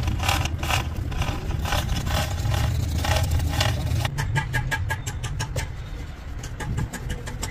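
A motor running with a steady low rumble, under rhythmic metallic ringing taps, about three a second, that quicken to around six a second about four seconds in.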